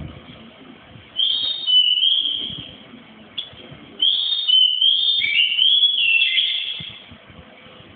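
White-rumped shama singing: two phrases of clear whistled notes that step up and down in pitch, a short one about a second in and a longer one from about four seconds to nearly seven.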